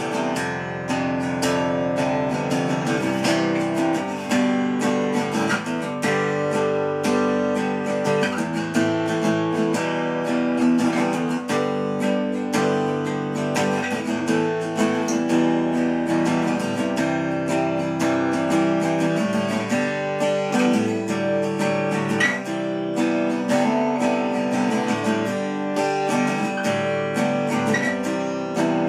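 Steel-string acoustic guitar strummed without a break, the chords ringing.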